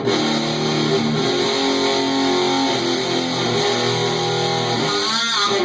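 Stratocaster-style electric guitar played through a stock Ram's Head Big Muff fuzz circuit on a breadboard, into a clean amp channel. It gives a heavy, sustained fuzz tone as notes and chords change every half second or so, a sound the player calls kind of savage.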